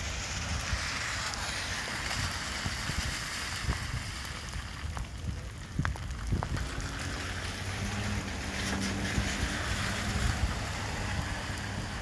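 Thunderstorm wind gusting and heavy rain falling, with the wind buffeting the microphone; the gusts swell near the start and again late on.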